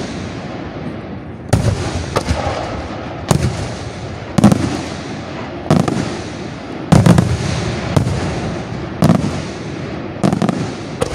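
Aerial firework shells bursting in a display: about ten loud bangs, roughly one a second, each followed by a rolling echo that dies away.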